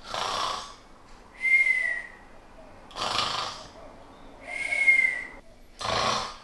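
A person snoring with a whistle: a noisy breath, then a high whistling tone that falls slightly in pitch. The pair comes twice, with a third noisy breath near the end.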